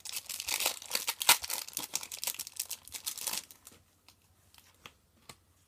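Foil trading-card packet being torn open and crinkled: a dense crackle of foil for about three and a half seconds, then only a few faint ticks.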